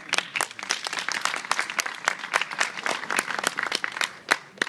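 Crowd applauding, many hands clapping at once, dying away near the end.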